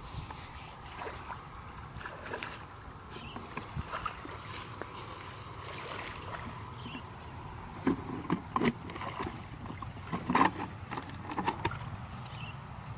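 Feet stepping and wading into shallow muddy water, with wet splashes and squelches. It starts with faint scattered sounds, and several loud splashes come in the second half, over a steady low background rumble.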